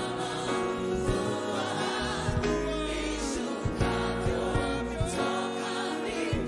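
Gospel worship song: voices singing over a band, with sustained chords and a steady beat of drum hits.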